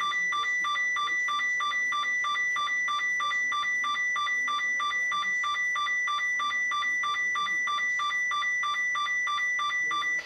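NOAA Weather Radio warning alarm sounding for a weekly alarm test. It is a steady high tone with a fast pulsing beep over it, about four beeps a second, and it cuts off abruptly near the end.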